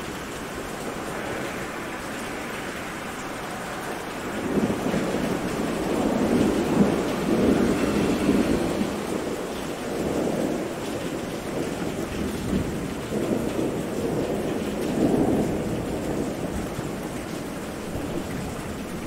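Steady rain with thunder rolling in long, low rumbles: a first roll starts about four seconds in and lasts several seconds, and another swells up past the middle.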